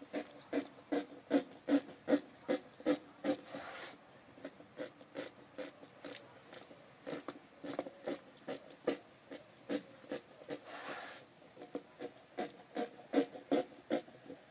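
Microtech HALO V knife blade sawing back and forth through a car tyre's rubber, a run of short rasping strokes about two or three a second, easing off for a few seconds in the middle before picking up again.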